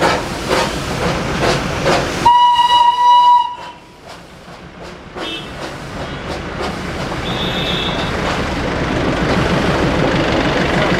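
Darjeeling Himalayan Railway B-class steam locomotive: rhythmic steam beats about two a second, then a steam whistle blowing one steady note for about a second. After a sudden drop the engine's steam hiss and running clatter grow steadily louder as it moves.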